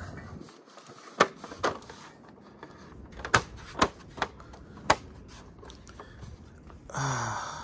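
Sharp plastic clicks and knocks, about six spread over four seconds, as a dropped phone is handled and fitted back onto its tripod mount. Near the end comes a short voiced sound that falls in pitch.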